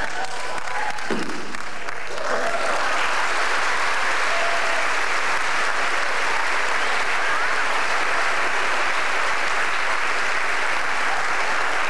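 Theatre audience applauding, the clapping coming in about two seconds in and then holding steady.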